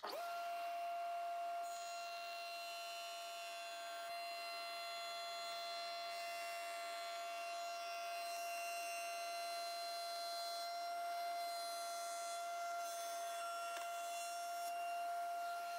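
Table-mounted router spinning a large glue-joint bit, a steady high whine that rises briefly as it comes up to speed at the start, while a board is fed along the fence to mill the mating half of a glued corner joint.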